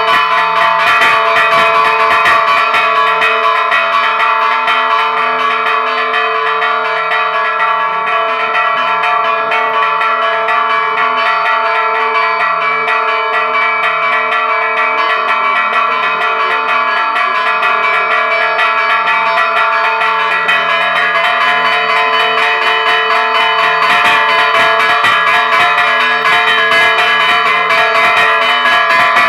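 Bronze church bells struck by their clappers, worked by hand with ropes and chains, in a fast, continuous festive peal (a Spanish toque de fiesta), the strikes overlapping into a steady ringing.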